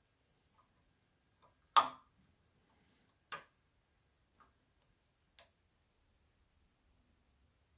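A few sharp clicks and taps of handle pieces being set and pressed onto a knife tang clamped in a vise. The loudest comes a little under two seconds in, then three fainter ones about a second apart.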